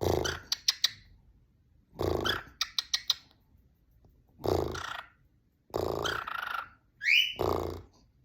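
An animal's calls in five short bursts, about one every one and a half to two seconds. Each burst is a rough, low sound ending in a few quick, sharp chirps or clicks, and one short rising chirp comes near the end.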